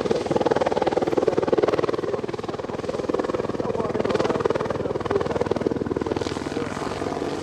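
Army Air Corps WAH-64D Apache attack helicopter in display flight, its main rotor beating in rapid, even pulses. The sound eases slightly about two seconds in, then holds steady.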